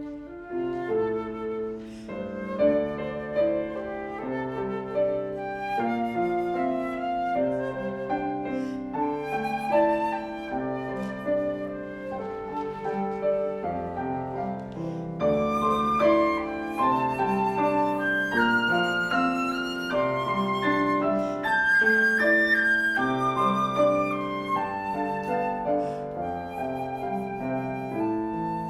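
Flute and piano playing a duet: a flute melody over a busy piano part, the texture growing fuller and louder about halfway through.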